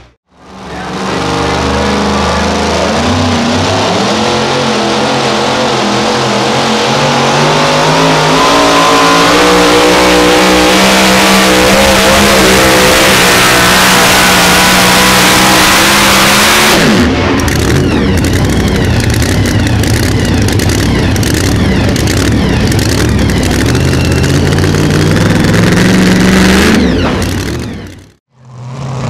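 Two-wheel-drive pulling truck's engine at full throttle, its pitch climbing as it drags the weight-transfer sled down the track. About two-thirds through the revs drop suddenly as the driver lets off at the end of the pull, followed by crackling and a few more rises in revs before it fades out.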